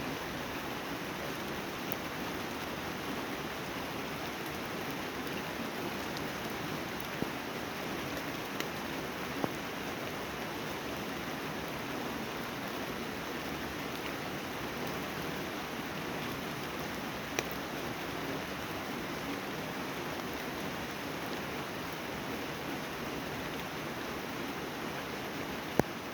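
Steady rain falling, an even hiss, with a few sharper drop taps scattered through it and the loudest one near the end.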